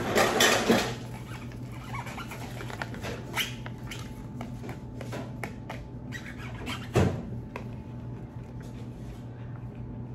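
Small plastic toy pieces and packaging being handled: a burst of rustling in the first second, then scattered light clicks and taps, with one heavier knock about 7 seconds in.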